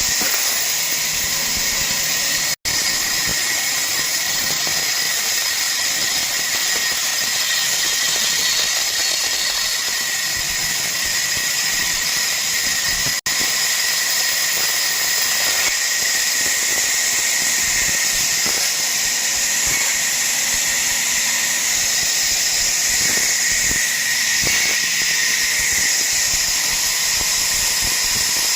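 Power saw running through wood: a steady high-pitched whine over a hiss, with two brief dropouts, about two and a half seconds in and about thirteen seconds in.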